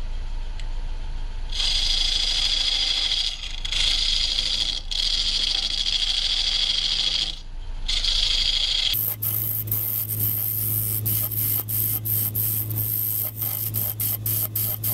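Wood lathe running while a homemade bedan tool cuts into a spinning block of figured maple, a hissing scrape in several strokes with short pauses between. After about nine seconds the motor hum changes pitch and the cut becomes a rapid series of clicks and scratches.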